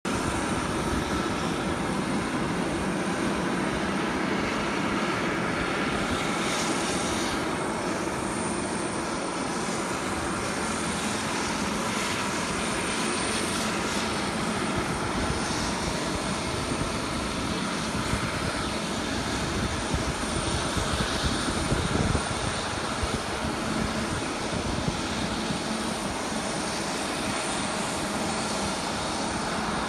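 Steady aircraft turbine noise with a thin, high, constant whine over an even roar, and gusts of wind buffeting the microphone.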